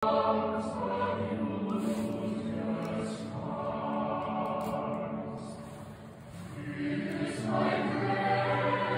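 Background music of a choir singing held chords; it fades about six seconds in, then swells again.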